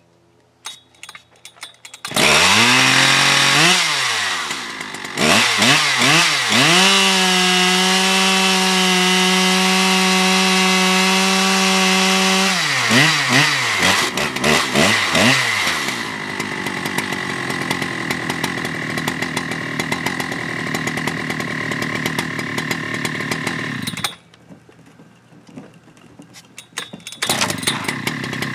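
Large older two-stroke chainsaw with a long milling bar being pull-started after sitting unused for a long while. It catches a couple of seconds in, revs up and holds at high revs for about seven seconds, then drops back with a few throttle blips. It runs lower until it stops abruptly, then fires up again near the end.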